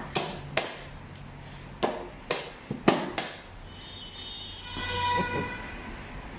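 Xiangqi pieces clacked down and slid on the board, several sharp clacks over the first three seconds. About four seconds in, a steady horn-like tone sounds for over a second, then fades.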